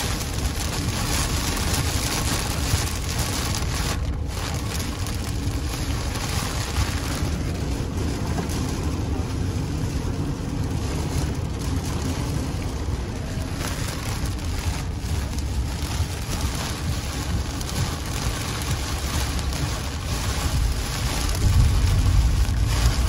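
Heavy rain hitting a moving car's roof and windshield, heard from inside the cabin over the steady rumble of tyres on the wet road. The low rumble grows louder near the end.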